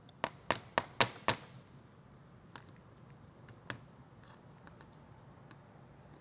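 Five sharp plastic clicks in quick succession, about four a second, as a flathead screwdriver works the plastic retaining tabs on a Toyota Corolla front bumper cover. Two fainter ticks follow a little later.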